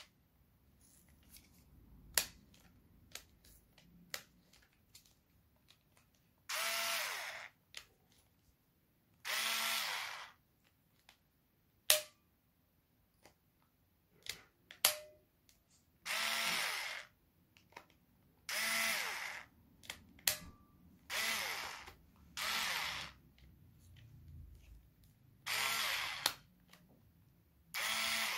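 Black & Decker KC9036 3.6 V cordless screwdriver's motor and gearbox run in about eight short bursts of roughly a second each, each one whining up to speed, with switch and handling clicks in between. The tool is being tried out on its newly fitted battery.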